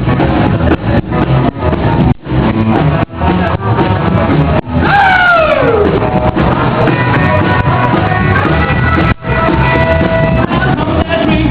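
Rock and roll band playing an instrumental break, guitar to the fore, with a few brief full stops. About five seconds in, a pitch slides steeply downward.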